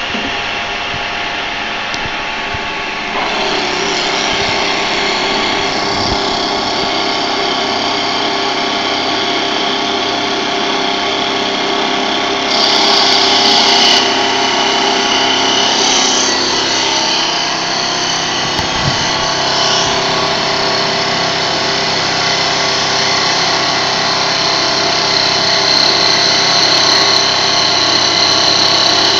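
Hempel copy lathe running, its cutters turning a wooden spindle: a steady machine hum with the hiss of wood being shaved away. It gets louder about three seconds in and rises briefly again near the middle.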